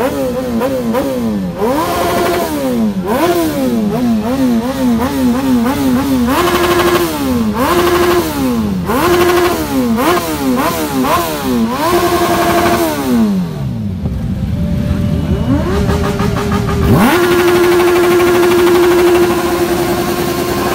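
Motorcycle engines, a Suzuki Hayabusa's among them, revved hard in quick repeated throttle blips, the pitch sweeping up and dropping back again and again. About two-thirds of the way in the revs fall away, then climb and are held at one steady high pitch for the last few seconds.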